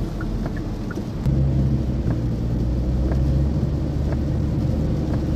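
Low engine and road rumble inside a moving car's cabin, stepping up louder about a second in, with a few faint small ticks.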